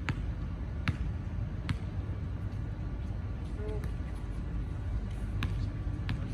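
A basketball bouncing on an outdoor hard court: three dribbles at the start, then two more near the end, over a steady low rumble.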